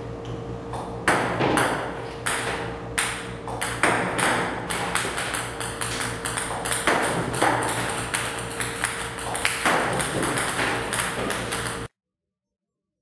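Table tennis balls striking the table in a quick irregular run of sharp clicks, several a second, over a steady hum; the sound cuts off suddenly near the end.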